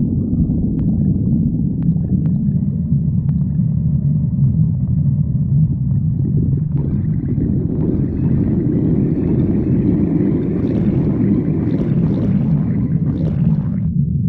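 Stomach growling: a continuous low rumble, with a louder, brighter growl that rises about halfway in and cuts off abruptly near the end.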